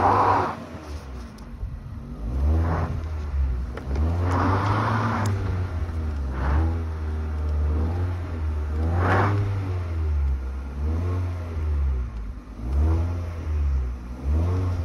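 Hyundai Solaris engine, fitted with a Kia Ceed GDI variable-geometry intake manifold, revved in about seven short throttle blips from idle, each rising and falling back. No knock from the intake manifold flap can be heard, which the owner puts down to retuning the cam phasing in software.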